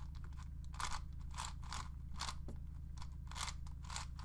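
ShengShou Wind 5x5x5 speed cube's plastic layers being turned by hand: a run of short, crunchy turning strokes, about two a second.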